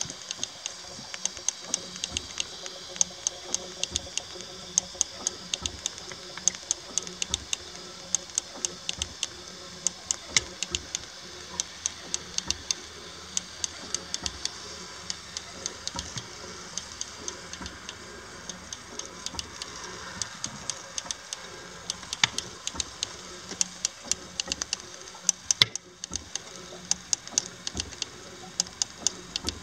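6-inch-scale Samson miniature steam engine running on slow tick over: a steady run of sharp clicks, several a second, over a steady hiss.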